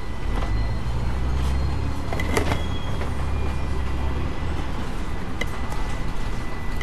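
Double-decker bus heard from inside on the move: the engine's low drone grows louder about half a second in and eases off after about four seconds, with short interior rattles and clicks and a faint steady high whine.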